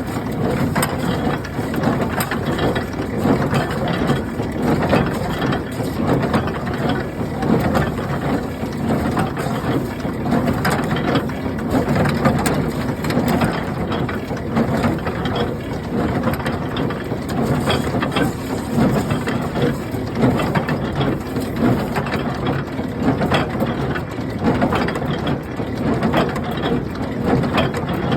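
International Harvester 47 square hay baler running: a steady mechanical clatter of gears, chains and ratcheting parts, with many small clicks throughout.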